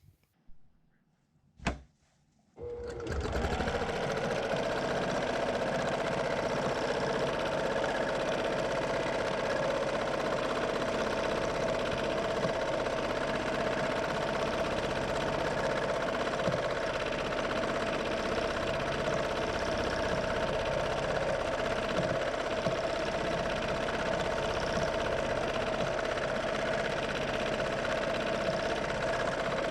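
A single click, then a Brother PQ1500SL straight-stitch sewing machine starts up about two and a half seconds in and runs at a steady, even speed without stopping.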